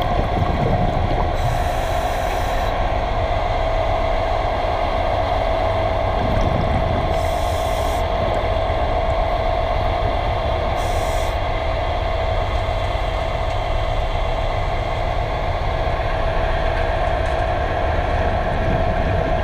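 Steady machinery hum and low rumble heard underwater, with one constant mid-pitched tone running through it. A short high hiss comes and goes three times.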